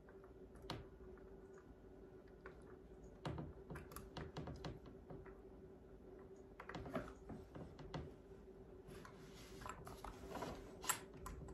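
Scattered small clicks and taps of hard parts being handled as a bipod mount is fitted onto a rifle's fore-end, in small clusters over a faint steady hum.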